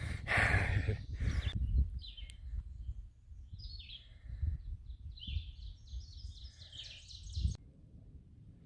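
A songbird singing in short phrases of high, quick rising and falling notes over a low steady rumble. A loud rustling noise fills the first second and a half, and everything cuts off sharply near the end.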